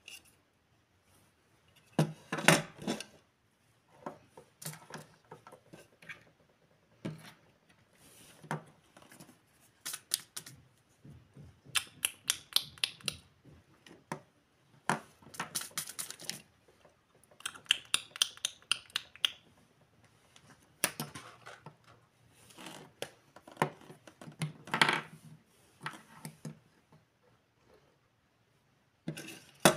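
Small hard plastic toys, a miniature tea set's cups, plates and cutlery with little figures, clicking and clattering as they are handled and set down on a wooden tabletop. The clicks come in irregular runs with short pauses between them.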